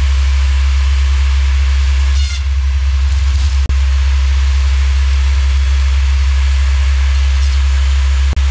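Tractor-mounted boom rotary sawblade and its tractor running, a loud steady low drone with a hiss over it, dropping out for an instant twice.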